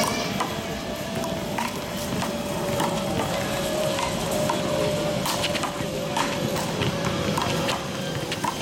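Scattered sharp knocks and slaps of a ball in play on a park court, irregular in timing, over steady outdoor background noise with a faint steady hum.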